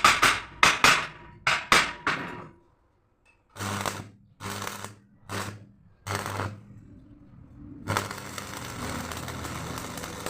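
Electric arc welding on steel shutter frames: several sharp metal knocks in the first two seconds, then four short bursts of arc crackle, each about half a second with a low buzzing hum, like tack welds. From about eight seconds in a longer steady crackle of a continuous weld run.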